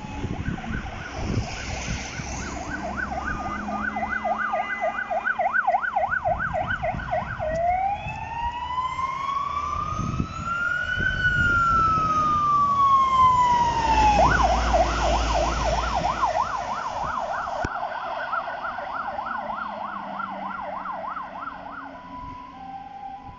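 Fire engine's siren sounding as the truck drives past: a fast warbling yelp, then about seven seconds in a slow wail that rises for about three seconds and falls for three, then the fast yelp again until near the end. A low rumble runs underneath.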